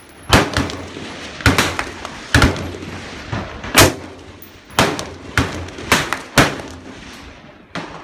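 Rifle fire on a shooting range: about eight sharp shots at uneven intervals, from an AR-15-style rifle and other guns on the firing line, each trailing off in a short echo.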